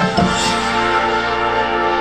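High school marching band playing: the winds hold a sustained chord after a fresh attack at the very start.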